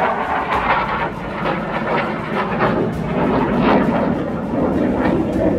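Jet engine noise from a fighter aircraft flying past overhead, loud and steady.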